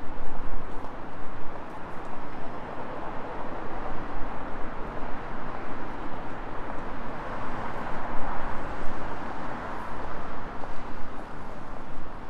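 Steady city street noise of passing traffic, swelling about eight seconds in.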